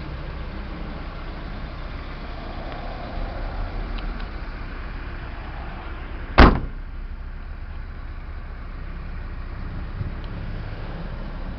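A pickup truck's door shutting with a single sharp slam about six seconds in, over a steady low rumble.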